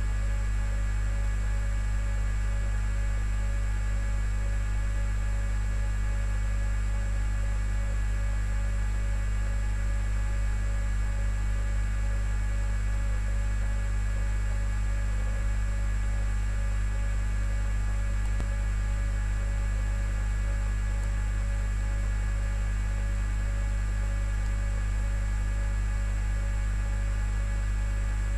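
Low, steady electrical mains hum that does not change.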